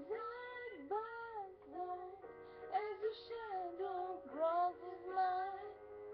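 A high voice singing a flowing melody, sliding between held notes, over steady sustained backing notes.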